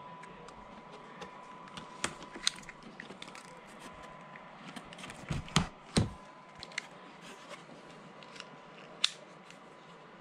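Hands handling a cardboard figure box as it is opened, with scattered clicks and scrapes of fingers on the cardboard and two loud knocks about halfway through. A faint steady high tone runs underneath.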